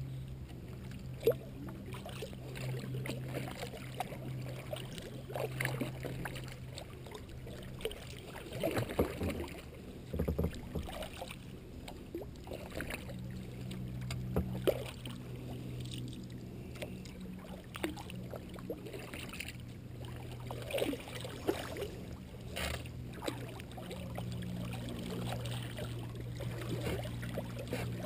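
Double-bladed kayak paddle dipping into calm creek water, with irregular splashes and drips every second or two over a steady low hum.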